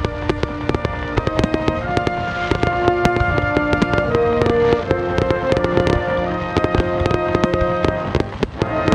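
Fireworks bursting and crackling in quick, irregular succession, heard together with music of long held notes.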